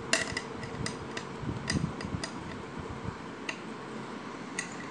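Perforated metal serving spoon clinking as beef biryani is scooped and served onto a banana leaf: a string of light, irregular metallic clinks, about eight of them.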